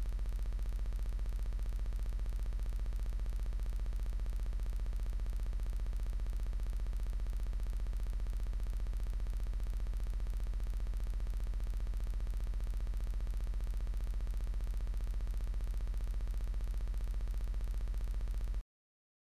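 A steady electrical buzz: a strong low hum with a fast, even flutter over it, unchanging until it cuts off abruptly near the end.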